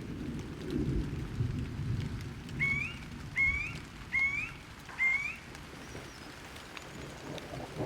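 Rain with the low rumble of thunder rolling underneath. In the middle a bird calls four times, short rising notes a little under a second apart.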